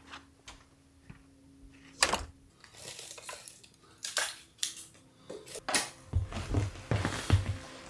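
Split kindling clattering and knocking as it is laid into a wood stove's firebox, followed by footsteps on a wooden floor near the end.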